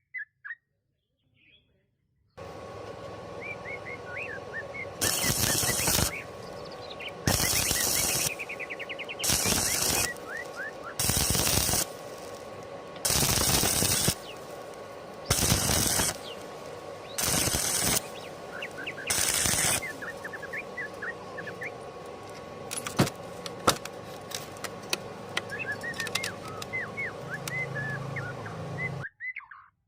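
Stick arc welding in a series of short, loud crackling bursts, about eight of them a couple of seconds apart, as short stitch welds are laid. A few sharp clicks follow near the end. Birds chirp in the background.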